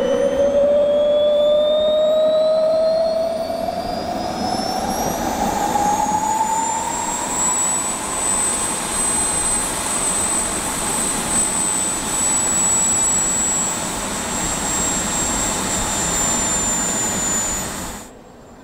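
Turbine engine of a CARF Models Mephisto RC jet, its whine rising in pitch over the first several seconds as the turbine spools up, then running steady at high power with a loud rush. The sound cuts off abruptly near the end.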